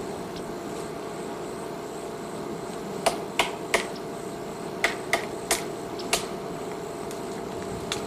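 Woodpecker tapping on a tree: seven sharp single knocks starting about three seconds in, in two quick runs of three and then one more, over steady background noise.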